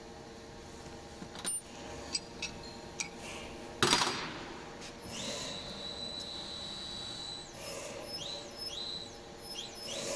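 Machine adjustment: a few light metal clicks and a knock, then a high-pitched machine whine that rises into pitch and holds for about two seconds, followed by several short rising whines.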